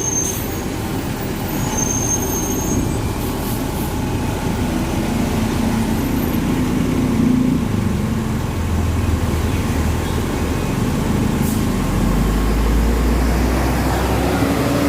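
Transjakarta city bus engine and busway traffic running steadily, with a deeper, louder low rumble coming in about twelve seconds in.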